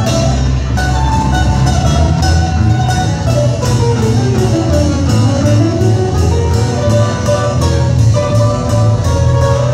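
Live band playing an upbeat instrumental passage on drums, timbales, guitars and bass guitar to a steady beat. Around the middle, a melody line slides down in pitch and back up.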